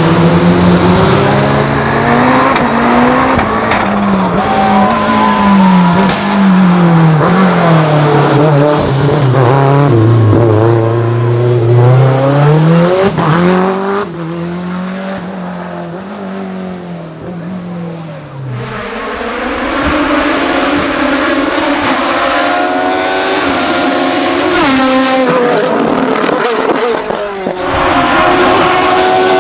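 Hill-climb race car engine revving hard, its pitch climbing and dropping over and over as it shifts through gears. It goes quieter for a few seconds in the middle, then builds again.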